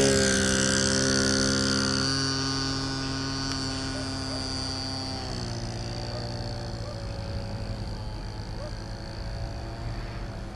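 Motor and propeller of a radio-controlled model Cessna 152 droning in flight, fading as the plane moves away, with a slight fall in pitch. About five seconds in, the motor note drops a step.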